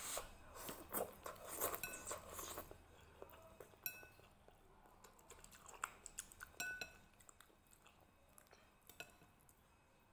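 Slurping soupy instant noodles for the first two and a half seconds, then chewing with scattered small clicks and clinks of chopsticks against the bowl.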